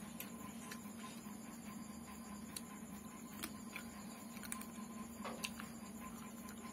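Quiet eating sounds: scattered small clicks and smacks as rice and curry are mixed by hand on a plate and chewed, over a steady low hum.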